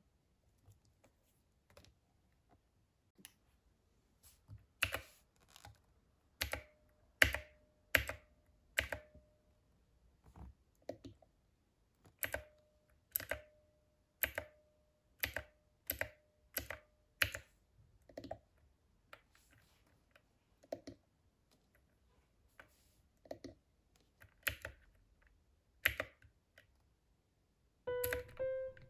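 Mechanical keys on a Divoom Ditoo pixel-art speaker pressed one at a time, each giving a sharp clack, at an uneven pace of roughly one a second with a few short pauses. Many presses are followed by a brief electronic beep.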